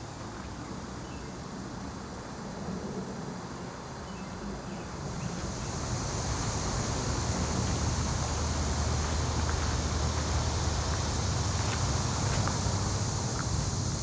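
Outdoor ambience dominated by distant road traffic, a steady low rumble. About five seconds in, a steady high hiss joins and the whole grows louder.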